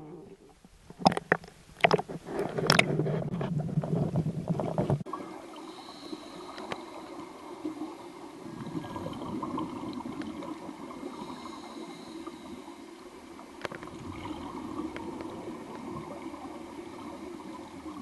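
Water slapping and splashing against a camera held at the lake surface, with several sharp knocks. About five seconds in the sound cuts to the muffled, steady underwater rush heard from a submerged camera, with faint thin high tones over it.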